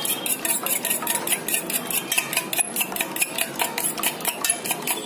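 A fork whisking a raw egg in a stainless steel bowl: a fast, even run of metallic clicks and taps as the fork beats against the bowl.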